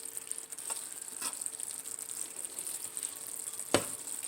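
Seasoned ground beef sizzling quietly in a frying pan on very low heat, the last of its water cooking off, with a few light clicks and one sharper click near the end.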